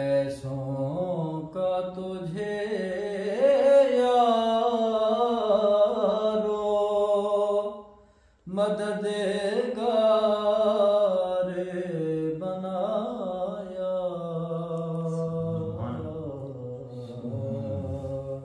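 A man singing a naat (a devotional Urdu poem) unaccompanied, in long held notes that waver and bend. He sings two long phrases with a short breath between them about eight seconds in.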